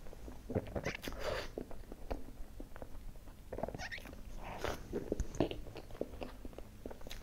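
Close-miked eating sounds of soft cream cake: wet smacking and chewing, with a metal spoon scooping into the cake.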